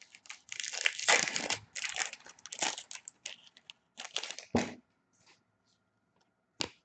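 Hockey card pack wrapper being torn open and crinkled, with bursts of crackling over the first few seconds, another burst about four seconds in, and a sharp click near the end.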